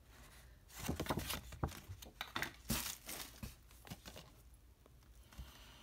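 Blu-ray steelbook case and its cardboard slipcover being handled: a few seconds of rustling, sliding scrapes and light clicks that die away about a second before the end.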